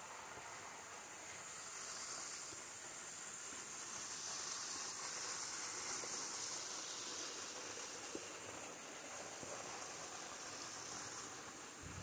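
Waterfall pouring down a rock face: a steady, hissing rush of water that swells about two seconds in and eases again near the end.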